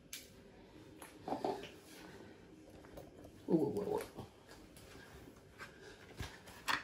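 Two short pitched vocal sounds, a brief one about a second and a half in and a louder one around three and a half seconds in, then a sharp click near the end.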